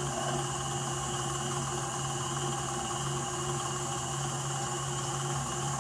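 KitchenAid tilt-head stand mixer running at a steady, raised speed, its motor humming as the flat beater turns through thick pound cake batter in the steel bowl.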